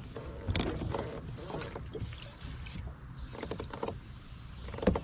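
Irregular knocks, clicks and water splashes from a small fishing boat while a small sunfish is brought in on a fly rod.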